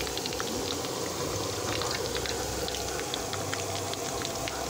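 Chicken feet and chopped garlic deep-frying in hot oil: a steady sizzle full of small, quick crackling pops.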